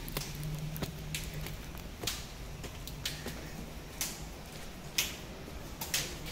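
Footsteps on stone paving, sharp hard-soled steps about once a second, over a faint steady low hum.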